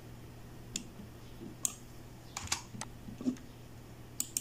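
Computer keyboard typing: a handful of separate key clicks at irregular spacing, with a quick pair near the end, over a faint steady low hum.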